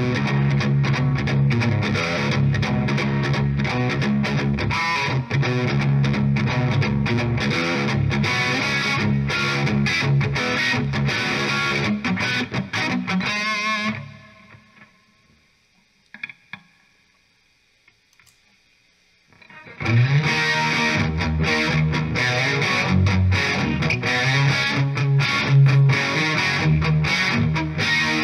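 Distorted electric guitar played through a slaved Marshall 1959SLP 100-watt valve head running at reduced mains voltage from a variac, heard through a microphone at the speaker cabinet. The playing stops about fourteen seconds in, leaving near silence with one faint click for about six seconds, then resumes.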